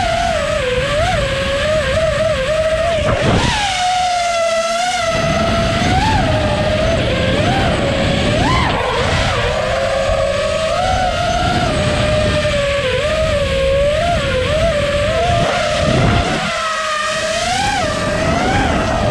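Brushless motors and props of a 6S FPV racing quadcopter (Emax ECO II 2306 1700kv motors, Gemfan 51466 props) whining, the pitch wavering and jumping up sharply a few times as the throttle changes, with wind rush on the onboard camera.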